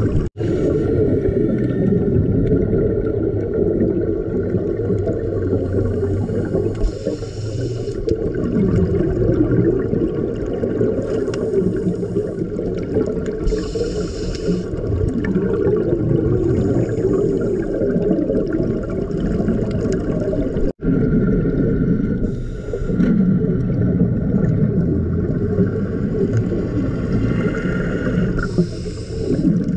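Underwater sound as picked up by a diving camera: a steady low rumble of water with scuba regulator exhalations bubbling out in short hissing bursts every few seconds. The sound drops out briefly twice.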